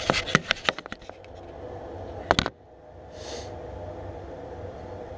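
Handling noise on a workbench: a quick run of light clicks and knocks in the first second, then a sharp double knock a little past two seconds, followed by a steady low hum.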